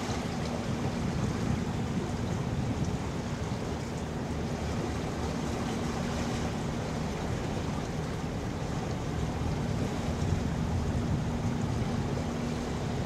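A container ship passes on the river with a faint, steady low hum under even wind and water noise.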